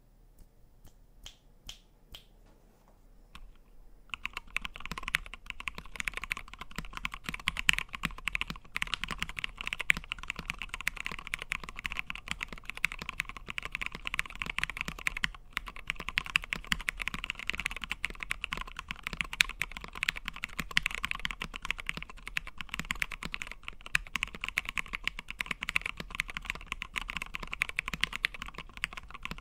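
Typing on a 65% mechanical keyboard with lubed, retooled Cherry MX Black linear switches on Gateron yellow springs, in a 5 mm acrylic sandwich-mount case, under MT3 Godspeed keycaps. A few single keystrokes at first, then fast continuous typing from about four seconds in, with a brief pause about halfway.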